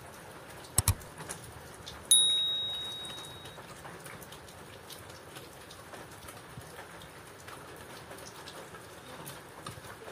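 Steady rain falling. A little under a second in there are two quick knocks, and about two seconds in a sharp, ringing clink that fades away over about a second and a half.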